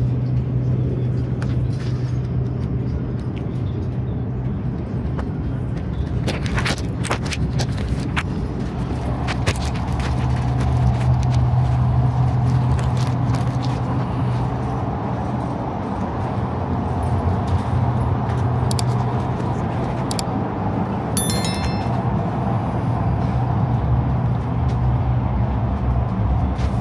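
Steady low hum and rumble inside a carriage of an Iryo Frecciarossa 1000 high-speed train. A cluster of sharp clicks comes about six to eight seconds in, and a brief high jingle about twenty-one seconds in.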